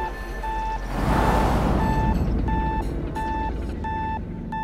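Vehicle reverse-warning beeper sounding a steady series of short electronic beeps, about three every two seconds, over a low engine rumble. A brief rushing swell rises and fades about a second in.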